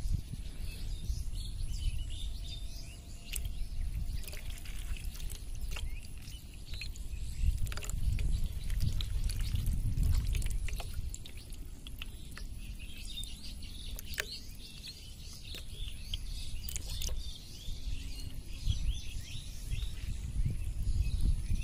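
Small birds chirping over a low rumble on the microphone, with water splashing and clicking as a hand stirs a basin of fish fry.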